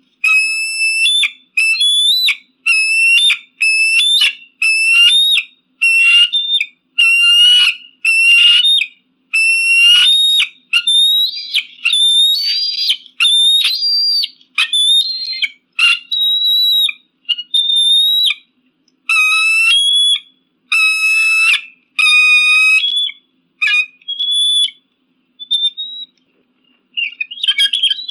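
Eagle calling over and over: a long series of high-pitched, piercing cries, about one a second. Later the cries turn shorter and more irregular, ending in a quick jumbled flurry.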